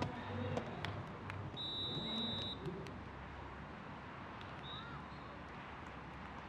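Open-air sports venue ambience: a steady background hiss with faint distant voices and a few light knocks. A high, steady whistle tone sounds for about a second, about a second and a half in.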